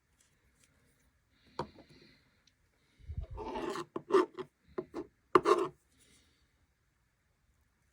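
Handling noises on a hard surface: a single click, then a rasping scrape about three seconds in, followed by several sharp knocks.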